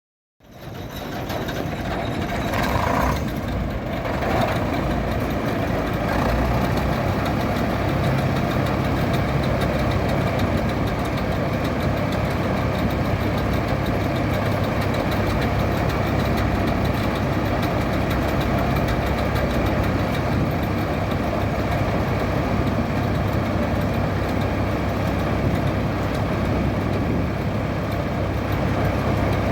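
A 1964 Claas Matador Standard combine harvester running steadily, its engine and threshing machinery going with a constant low hum; the sound fades in about half a second in.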